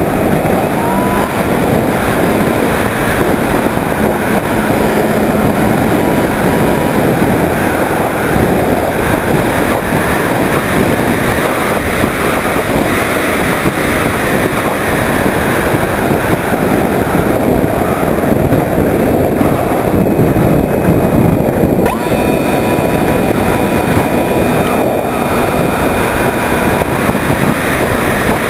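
Steady rush of air over the onboard camera of a Skyhunter 1.8 m RC plane in flight, mixed with the even drone of its electric motor and propeller.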